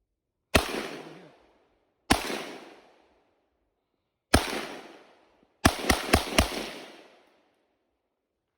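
Seven sharp, loud bangs, each echoing away over about a second: three single bangs a second or two apart, then a quick run of four.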